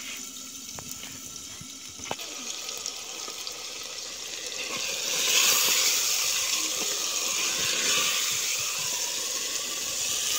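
Potato-cauliflower curry bubbling and hissing in a clay pot over a wood fire. The sound grows louder about halfway through, when the lid is off and the curry is stirred with a wooden spoon. A couple of light knocks come in the first two seconds.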